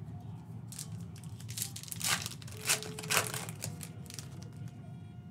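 A Panini Donruss basketball card pack's wrapper being torn open and crinkled in a run of crackling rips, loudest about two to three seconds in.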